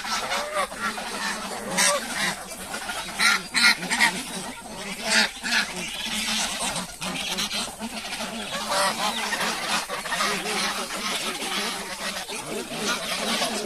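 Farmyard poultry calling, many overlapping calls, with a run of short loud calls between about two and five seconds in.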